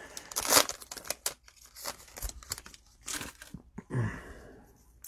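Plastic cellophane wrapper of a trading-card pack crinkling and tearing as it is opened, in irregular crackles that thin out in the second half.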